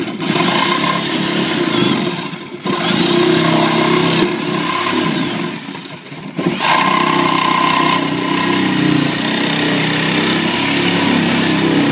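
Reciprocating saw (Sawzall) cutting through drywall in three long runs, its motor winding up at the start of each, with short pauses about two and a half and six seconds in.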